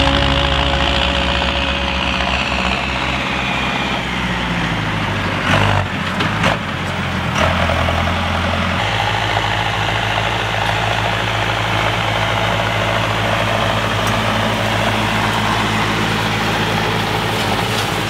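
Tractor diesel engine running steadily, its note shifting a few times, with two short knocks about five and a half and six and a half seconds in.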